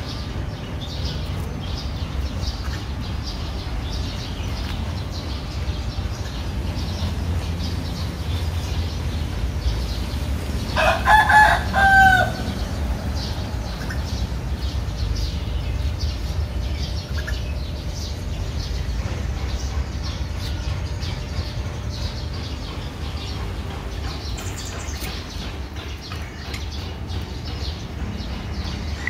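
A rooster crows once, loud, about eleven seconds in, over a steady low background rumble.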